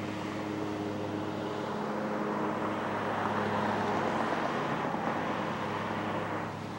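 Steady motor-vehicle noise: a low engine hum under a broad rushing hiss that swells about three seconds in and eases off near the end.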